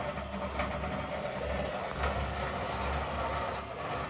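GE top-load washer running under a full load of water, its low motor hum coming and going with a rough grinding noise: worn tub shocks let the tub drop so a wheel grinds against the metal frame.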